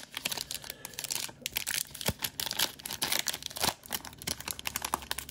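Foil-lined trading card pack wrapper being torn open and crinkled by hand: an irregular crinkling and crackling of thin foil, with a few sharper snaps.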